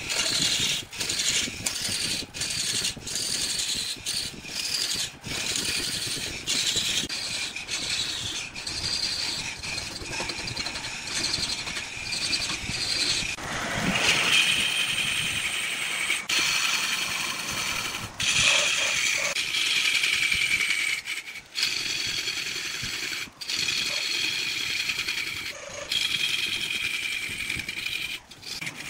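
Turning tool cutting into wood spinning on a lathe: a high, scraping squeal that drifts in pitch, broken often by brief dips.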